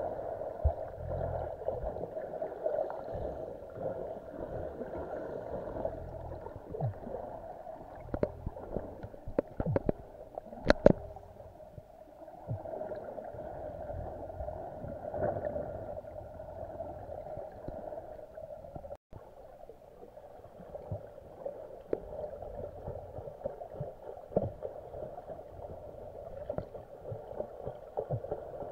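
Muffled underwater sound of water moving around a swimming snorkeller, a steady dull hum with scattered sharp clicks and knocks. The loudest click comes about eleven seconds in.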